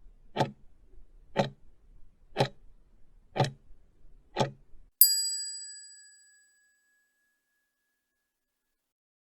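Quiz countdown timer sound effect: five ticks one second apart, then a bell ding that rings out and fades over about a second and a half, marking the end of the answer time.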